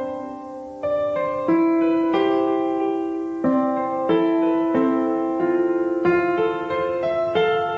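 Background piano music: slow chords struck one after another, each left to ring before the next.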